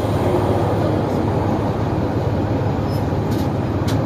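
NABI 416.15 transit bus running, a steady low engine drone with a few light clicks and rattles scattered through it.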